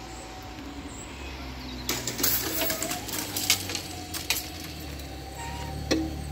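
Level-crossing barrier booms lowering, their hanging metal grilles rattling and clinking in a cluster of sharp clicks, with a louder knock near the end.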